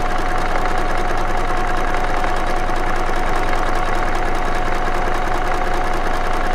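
Domestic sewing machine running steadily at speed, overcasting raw fabric edges, with a fast, even stitching rhythm over a steady motor whine.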